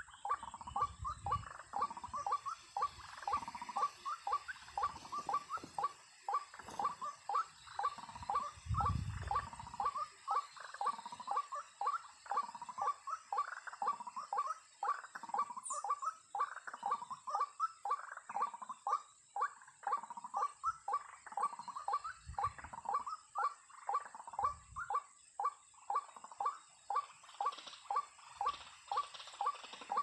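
White-breasted waterhen calls: a fast, unbroken series of short, harsh 'ruak' notes repeated two to three times a second, the bird's call used to lure waterhens to snares.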